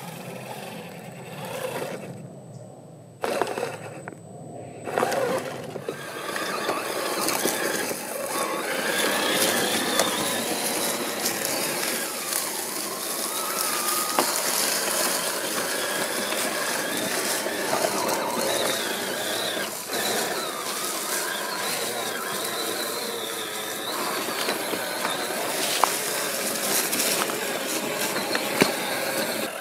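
Electric whine of a 1/8-scale RC crawler's 550 brushed motor and geared drivetrain, wavering in pitch with the throttle as it crawls over rock. It is quieter and broken for the first few seconds, then steady from about six seconds in, with a couple of sharp clicks near the end.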